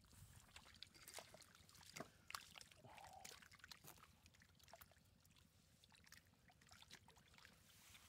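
Faint, irregular small splashes and wet slaps of shallow muddy water as hands grab fish and scoop them into a plastic basket.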